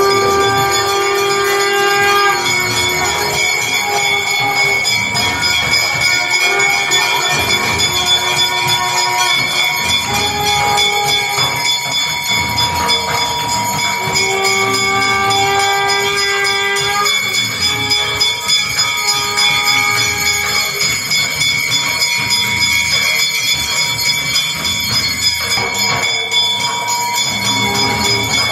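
Temple bells ringing continuously and densely, with long held horn-like tones that change pitch every few seconds over the ringing.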